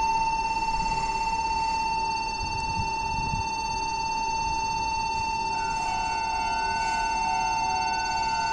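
A steady, high-pitched electronic warning tone sounds without a break, and a second, higher tone joins it about five and a half seconds in.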